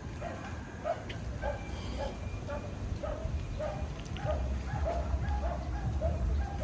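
A dog barking repeatedly, short barks about two a second.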